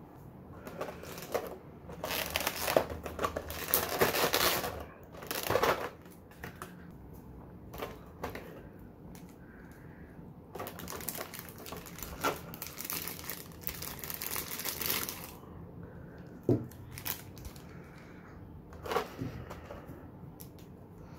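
Clear plastic blister packaging and a plastic bag crinkling and crackling as a Nendoroid figure is unpacked by hand. The sound comes in two longer bursts with quieter pauses between, then a few sharp clicks near the end.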